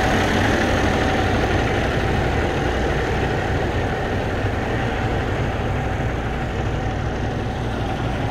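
Semi truck's diesel engine idling steadily, a low, even rumble with no change in speed.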